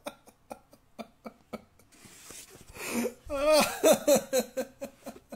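A man laughing heartily: a string of short breathy laughs, a gasping in-breath about two seconds in, then a louder, wavering burst of laughter from about three seconds.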